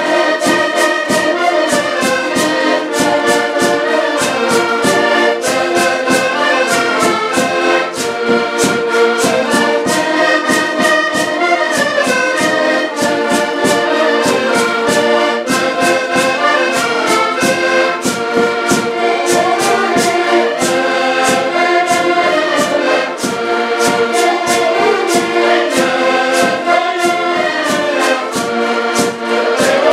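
Several accordions playing a lively Portuguese folk tune together, with a steady percussive beat ticking under the melody.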